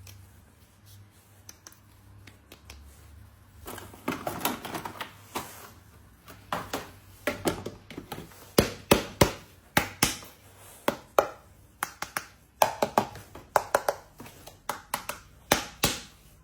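Small toy and packaging being handled: after a few faint seconds, a run of irregular sharp clicks and taps, with a brief rustle about four seconds in.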